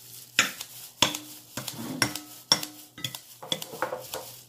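Kitchen scissors cutting soaked bean-thread noodles in a glass bowl: a string of short, sharp snips and clinks, unevenly spaced at roughly two a second.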